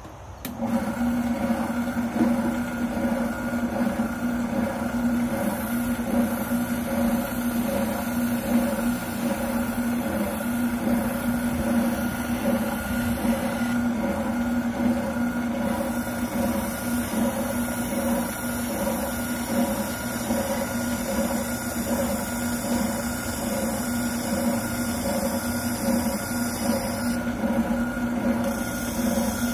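Wilton oscillating sander switched on about half a second in, then running with a steady hum while it sands a shotgun buttplate.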